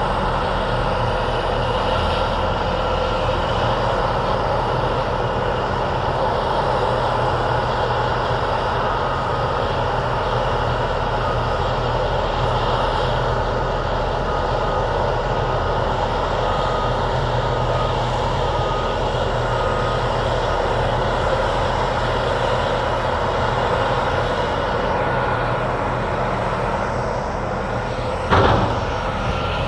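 Diesel engines of heavy earthmoving machinery running steadily under load. A faint beeping repeats about once a second through the middle, and a single sharp metallic knock comes near the end.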